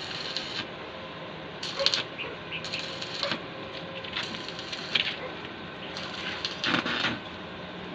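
Electric arc welding on a steel railing: the arc crackles and sizzles in about five short bursts, each under a second, with quieter gaps between.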